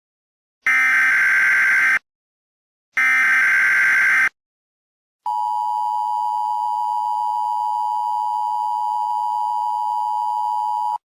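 Emergency Alert System tones: two bursts of the SAME digital header, each a buzzing data squawk about a second long, then the EAS two-tone attention signal (853 and 960 Hz together) held steady for about six seconds.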